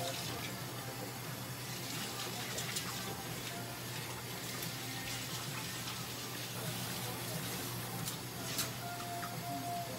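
Steady hiss of running water, as from a tap, over a low steady hum, with a few light clicks.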